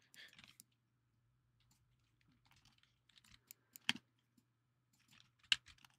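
Scattered computer keyboard and mouse clicks: a few soft taps near the start, a sharper click just before four seconds in and another about five and a half seconds in, over a faint low steady hum.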